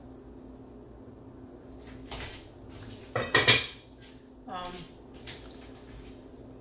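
Metal lid of a Dutch oven pot being set on and settled, with a few clanks. The loudest comes about halfway through, with a brief metallic ring.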